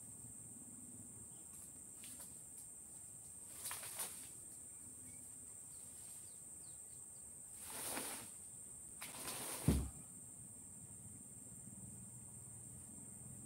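Steady high insect drone, with a few short scraping and rustling noises from ulin (ironwood) boards being handled, and a sharp wooden knock about ten seconds in.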